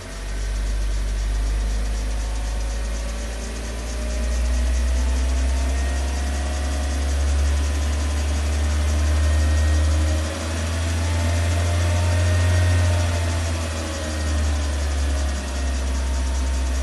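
Opel Adam S's 1.4 turbo four-cylinder engine running at about idle with a clacking noise, over a deep low rumble; its pitch drifts slightly up and down.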